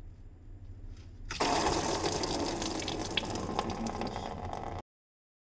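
Coolant running out of a Skoda Fabia's radiator drain plug in a thin stream, draining the cooling system for a flush. The trickle starts about a second and a half in, once the plug is loosened, and cuts off suddenly near the end.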